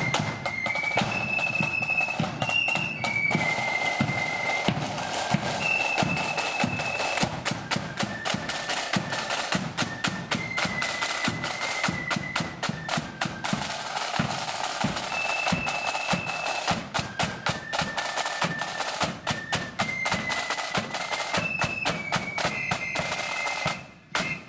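Marching flute band playing a tune: flutes carry a high melody over fast snare drumming and bass drum beats. The music stops suddenly near the end.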